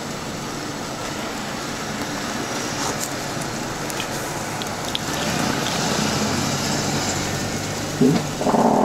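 Steady outdoor noise with a motor vehicle running, growing louder in the second half, and a short loud pitched sound about eight seconds in.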